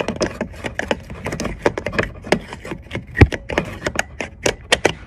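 A rapid, irregular series of knocks and clicks, with the loudest knock about three seconds in.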